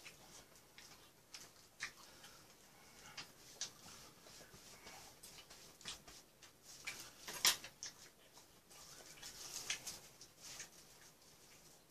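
Quiet eating sounds: chewing and mouth smacks, with scattered light clicks of chopsticks and a spoon against dishes. The sharpest click comes about seven and a half seconds in.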